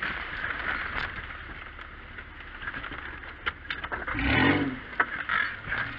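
Off-road four-wheel-drive vehicle crawling over a rutted dirt track, heard from inside the cab: the engine runs with knocks and rattles from the body. A short engine rev about four seconds in is the loudest moment.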